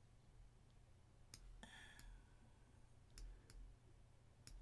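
Faint computer mouse clicks, four sharp clicks spaced over a few seconds, with a brief short noise about two seconds in, over a low steady hum.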